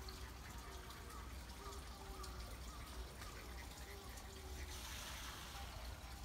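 Faint pond water trickling with a low rumble underneath; the hiss swells about five seconds in.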